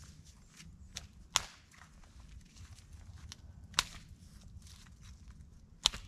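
Dry dead branches being snapped off a fallen tree: three sharp cracks a couple of seconds apart, with soft rustling and crunching in the snow between them.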